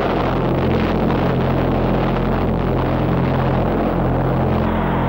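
Loud, steady rumbling roar of an atomic bomb explosion, a dense low noise that goes on without a break.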